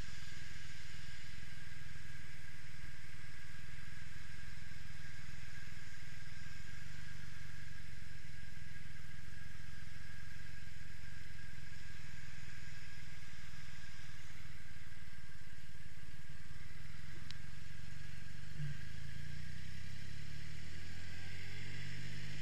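Triumph Rocket III motorcycle's 2.3-litre inline three-cylinder engine idling steadily, then rising in pitch as the bike pulls away near the end.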